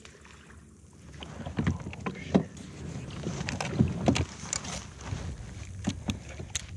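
Handling noise in a plastic fishing kayak: irregular knocks and clunks against the hull with some water noise, starting about a second in.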